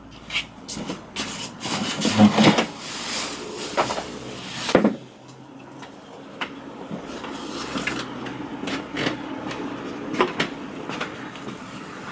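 Knocks, scrapes and rustles of a person moving about a wooden floor and settling onto a chair at a table. The busiest part comes in the first five seconds, after which it drops to quieter handling of painting materials with occasional small clicks.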